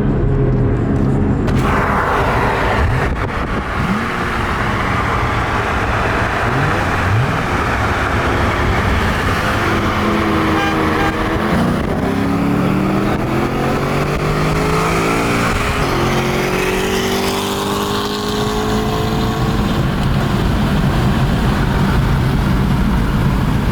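Car engine under hard acceleration, its pitch rising in several sweeps through the gears, over steady wind and road noise.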